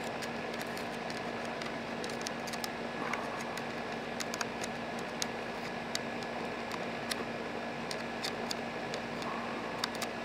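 A small screwdriver tip scraping and clicking against a chainsaw guide bar, picking out plastic debris jammed in the bar's groove and nose bearing: scattered light clicks over a steady hum.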